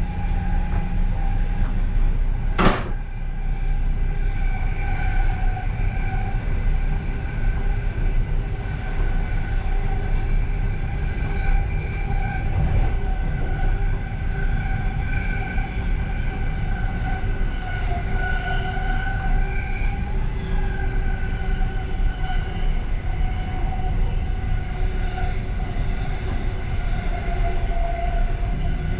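Passenger train running, heard from inside its last car: a steady low rumble with a faint, gently wavering whine above it, and one sharp knock a little over two seconds in.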